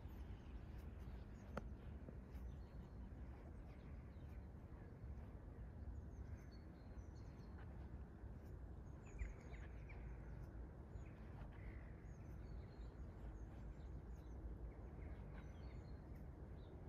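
Faint rural outdoor ambience: a steady low rumble with scattered short bird chirps, most of them from about halfway through, and a soft knock about nine seconds in.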